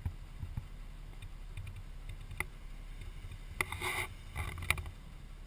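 A Jeep rolling slowly over a dirt trail: a low engine rumble with wind buffeting the hood-mounted camera, scattered light rattles, and a brief louder clattering burst about four seconds in.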